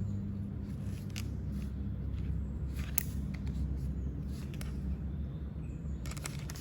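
A few faint clicks and light handling noise from a tool belt pouch being turned over in the hands, over a steady low hum.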